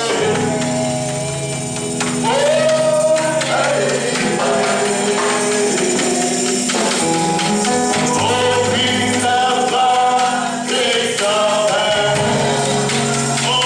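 Gospel praise music: a congregation or choir singing, with a tambourine shaken and struck in rhythm over steady bass.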